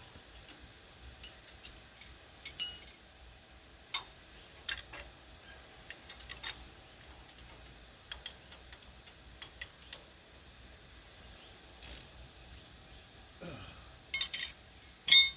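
Scattered metallic clicks and clinks, like tools and small metal parts being handled while working on the plow, with a short falling squeal near the end.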